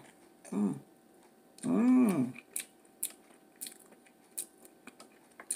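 Chewing a mouthful of boiled egg, with scattered sharp mouth clicks and smacks. Two short hummed sounds of enjoyment come about half a second and two seconds in, the second one longer.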